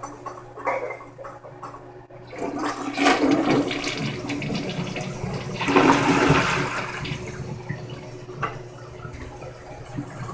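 Toilet flushing: a rush of water starts about two seconds in, swells and then tapers off toward the end.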